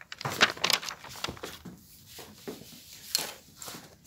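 Chalk tapping and scratching on a blackboard in a run of short, sharp strokes, with papers being handled on a desk near the end.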